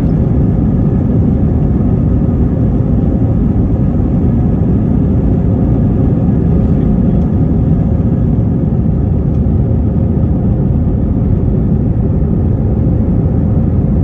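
Cabin noise of an Airbus A321-231 during takeoff: its IAE V2500 jet engines at high thrust, a loud, steady low rumble with faint whining tones above it.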